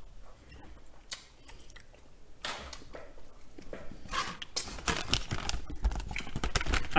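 Small eating and table-handling noises: scattered clicks and short rustles of people eating and moving things at a table. They grow busier and louder over the last three seconds, with a few dull low bumps.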